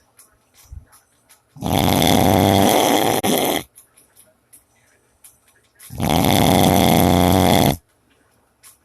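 Loud snoring: two long snores of about two seconds each, roughly four seconds apart, with quiet between.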